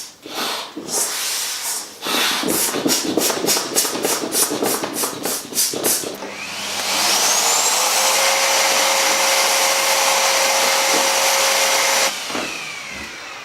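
Quick scratchy clicks and rubbing, then a vacuum cleaner motor switches on about six seconds in, whining up to speed. It runs steadily and loudly, then cuts off near the end and winds down.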